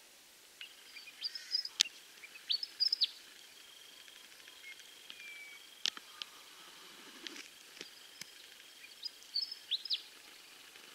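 Birds calling in the bush: short high chirping phrases in a few clusters over a faint steady high tone, with three sharp clicks.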